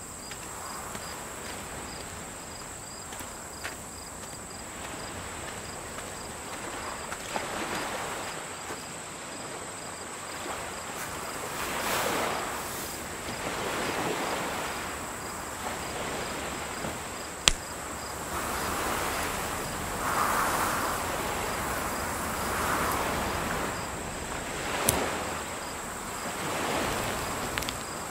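Outdoor field ambience of crickets: a steady high-pitched insect drone with evenly repeated chirps, under soft rushing swells that rise and fall every few seconds. Two sharp clicks stand out, one just past the middle and one near the end.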